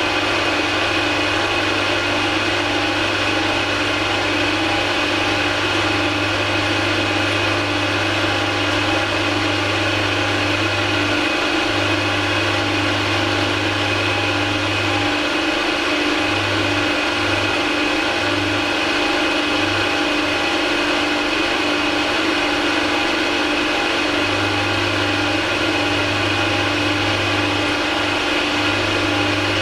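A machine tool running steadily with a whining gear-train hum while it gently cuts brass. A lower hum drops in and out in stretches.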